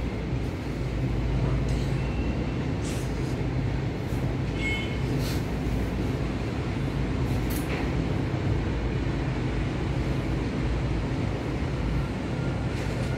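Steady low background rumble, with a few short faint strokes and squeaks of a marker on a whiteboard.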